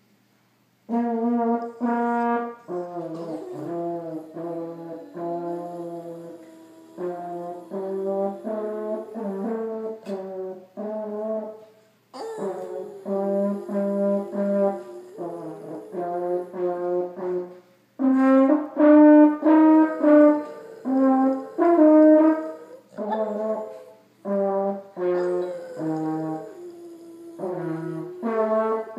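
French horn played as a series of separate held notes, starting about a second in. A Boston terrier howls along under the horn, its howl sliding in pitch between the notes.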